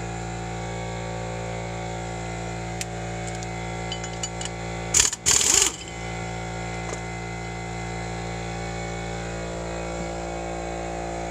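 Power wrench briefly spinning off the old acorn lug nut that was used to pull a new wheel stud into the hub, in two short bursts about five seconds in. A steady hum runs underneath.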